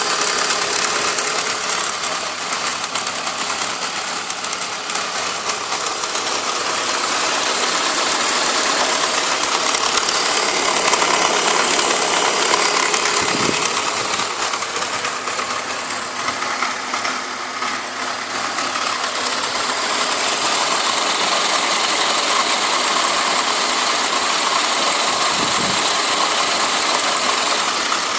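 BMW E46 330Ci's inline-six engine idling, with a ticking noise that the owner says isn't normal for an E46.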